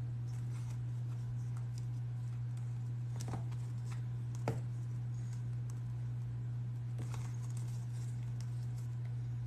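Light clicks and taps of hands working brass rivet hardware into a leather tray, the sharpest about four and a half seconds in, over a steady low hum.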